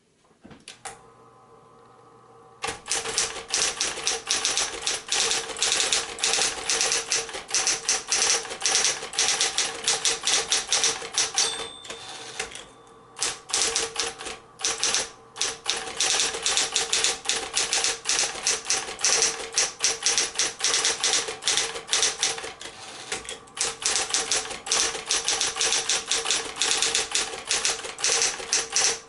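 Mid-1960s Smith-Corona Coronet 10 electric typewriter: its motor hums steadily from about a second in, then rapid runs of powered keystrokes clatter from about three seconds in, with brief pauses. A short ringing tone sounds about twelve seconds in.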